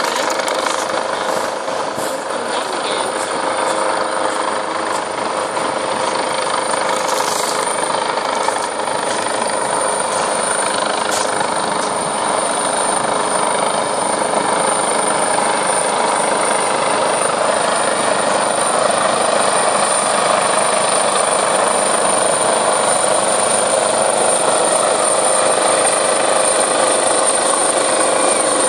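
Coastguard search-and-rescue helicopter hovering low over the sea: a steady drone of rotor and turbine that grows slightly louder in the second half.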